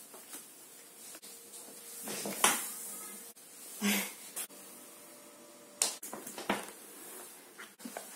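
A few short rustles and soft knocks of someone moving about and handling things, such as a tissue, a chair and a leather handbag, spaced a second or so apart in a quiet small room.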